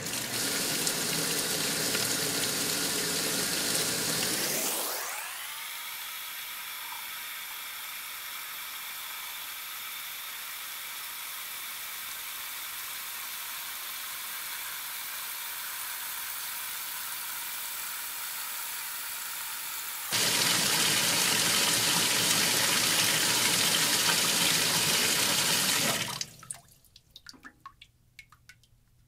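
Magic Chef 20-pound washer filling its tub with water for the rinse: water runs in through the open inlet valve, rises in pitch about five seconds in, runs louder for the last few seconds, then cuts off sharply as the fill ends, leaving a few drips.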